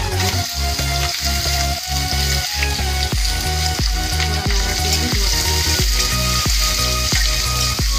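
Chopped onions sizzling as they hit hot oil in a kadhai with a tempering of peanuts, dry red chillies and curry leaves, then stirred with a metal spatula. Background music with a steady beat plays under it.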